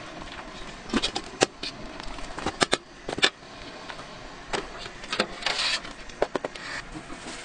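Metal wire skimmer knocking and clinking against the side of a stainless steel stockpot in irregular sharp taps while boiled vegetables are scooped out of the broth. A brief splashing rush comes a little past halfway.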